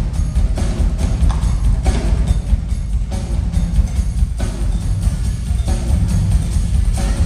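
Two drummers playing full drum kits together live, a dense steady rhythm of drum hits and cymbals with a heavy low end.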